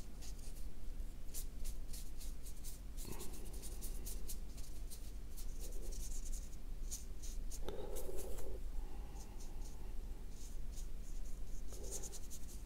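Small paintbrush loaded with watered-down black tempera stroking and dabbing across drawing paper, in a run of many short strokes.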